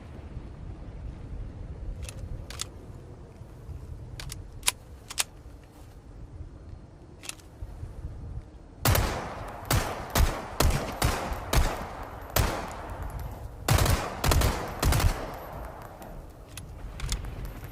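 Thompson submachine gun ('Chicago sweeper') firing: scattered sharp single clicks at first, then from about nine seconds in a loud stretch of rapid automatic fire, a short pause, and a second burst around fourteen seconds in, with a few clicks after.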